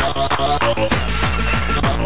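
Early-1990s old skool hardcore rave music in a DJ mix: a fast, steady electronic beat with a heavy kick drum, bass and repeating synth riffs.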